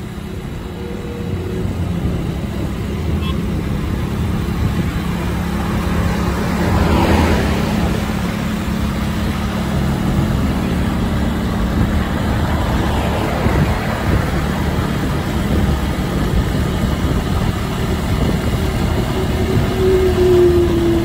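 Motorcycles riding at speed on a highway: wind rushing over an open microphone over the steady running of the engines. A louder rush swells about seven seconds in, and a short, slightly falling tone sounds near the end.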